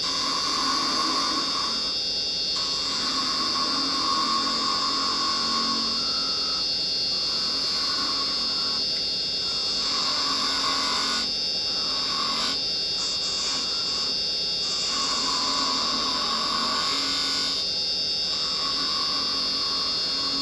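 A wood lathe runs with a steady high whine while a carbide detail chisel cuts the spinning spindle. The cutting noise stops and starts every second or few as the tool is taken in and lifted away.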